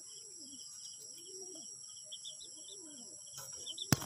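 Crickets chirping in a steady pulse, with a domestic pigeon's low coos rising and falling about once a second. A sharp click sounds near the end.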